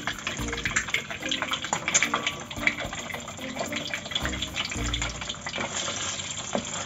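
Eggs frying in hot oil in a steel wok: a continuous crackle and spatter of oil. A spatula starts stirring and scraping the wok near the end.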